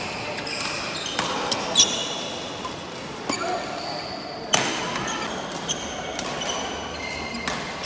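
Badminton rally: several sharp racket-on-shuttlecock hits, the loudest about two seconds and four and a half seconds in, with short high squeaks of court shoes between them over a background murmur of voices and play from neighbouring courts.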